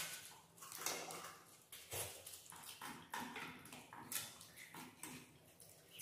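Eating sounds: chewing and lip-smacking, with hands working rice and curry on steel plates, as a string of short, irregular soft noises.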